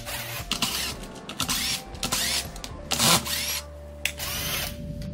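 Cordless electric screwdriver running in several short bursts, its whine rising and falling, as it backs out the screws of a wall sander's plastic motor housing.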